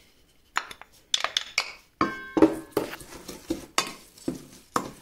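Herbs tapped out of a small glass dish into a stainless steel mixing bowl, with knocks and a short ringing clink about two seconds in. Then a wooden spoon stirs a crumbly mix, knocking against the bowl in quick repeated strokes.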